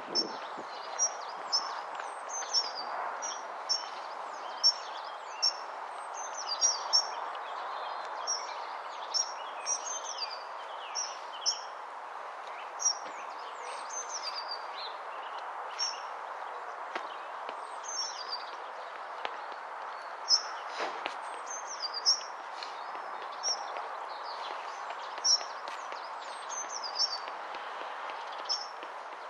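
A small bird chirping over and over, short high chirps often less than a second apart, thinning out after about twelve seconds, over a steady hiss of outdoor background noise.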